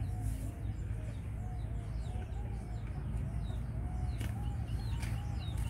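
Chickens clucking: a continuous run of short rising-and-falling calls, with thin high chirps above them and a steady low rumble underneath.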